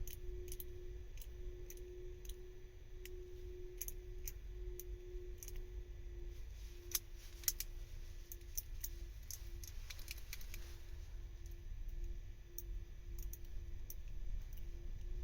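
Small, irregular clicks of a combination padlock's number wheels being turned by thumb, the code being reset to zeros, over a faint steady hum.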